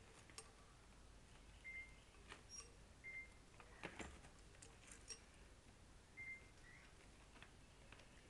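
Near silence with faint scattered clicks and taps of toys and the wicker basket being handled, plus three brief high peeps spread through the stretch.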